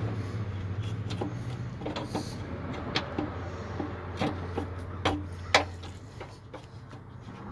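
A few scattered sharp clicks and knocks of hand tools working on car bodywork, the loudest near the middle and about two thirds of the way in, over a low steady engine-like hum that fades away after about six seconds.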